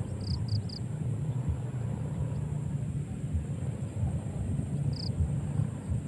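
Open-field ambience: an uneven low rumble of wind buffeting the microphone, with a quick run of three high bird chirps near the start and one more chirp about five seconds in.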